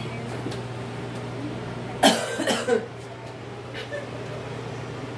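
A person coughing, a loud cough about two seconds in followed quickly by one or two smaller ones, over a steady low hum.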